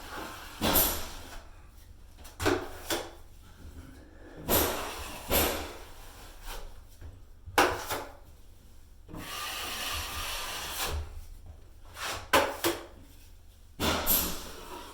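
A metal drywall knife scraping and spreading joint compound in a series of short rasping strokes, with one longer, steadier stroke about nine seconds in.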